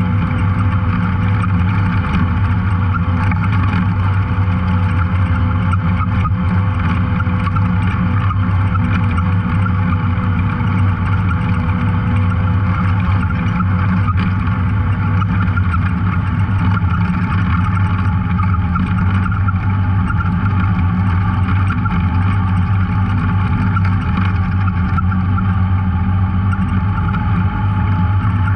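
Off-road vehicle engine running at a steady speed, a constant unbroken drone with no change in pitch.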